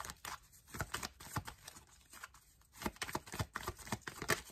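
A tarot deck being shuffled by hand: a string of quick papery flicks and rustles of the cards, in two spells, about a second in and again from about three seconds in.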